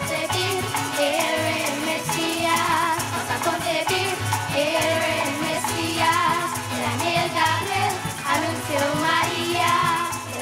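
Children's choir singing a parang song, the Spanish-language Christmas folk music of Trinidad, with a live band accompanying on strings and percussion.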